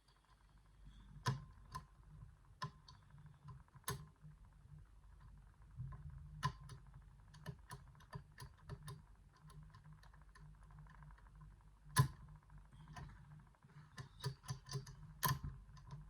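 Irregular light metallic clicks and taps of a lock pick and tension tool lifting and dropping the levers inside a Stuv 8-lever safe lock during picking. One sharper click comes about twelve seconds in, and a cluster of quicker clicks follows near the end.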